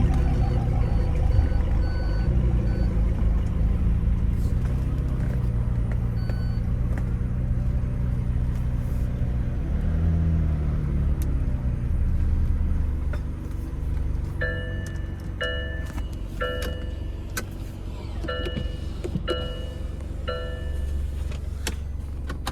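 McLaren sports car engine running at low speed while being parked, rising in pitch twice with light throttle. Near the end a parking sensor beeps in two sets of three short beeps, about a second apart.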